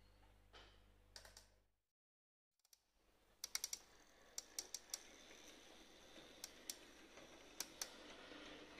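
Märklin Z gauge model freight train hauled by an E40 locomotive, rolling along the track: a faint steady rattle with irregular sharp clicks as the wheels cross rail joints and points. The sound cuts out completely for under a second about two seconds in.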